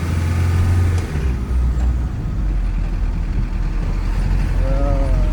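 Engine and road noise of a moving car heard from inside the cabin: a steady low drone that drops in pitch twice in the first couple of seconds, then holds.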